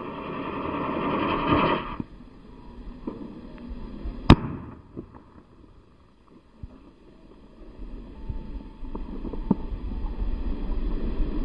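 A firework sky rocket hissing as it climbs, with the hiss cutting off about two seconds in. About four seconds in comes a single sharp bang as the rocket bursts high up, followed by a few faint pops.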